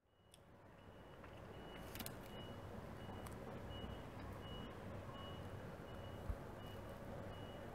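Faint electronic beeping at an even pace, about two short high beeps a second, over a low steady rumble. A few small clicks and one sharp thump come about six seconds in.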